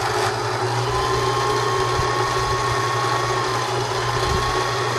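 Meister 76 sewing machine's electric motor running steadily on the foot pedal, spinning the bobbin winder while the sewing mechanism is declutched. It is a constant hum with a high whine that sags briefly in pitch about midway, then recovers.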